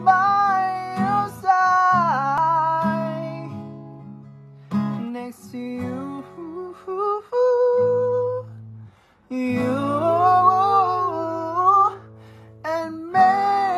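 A man singing a slow ballad in a high voice, accompanying himself on an acoustic guitar. The voice holds long notes over sustained chords, and both stop briefly about nine seconds in before resuming.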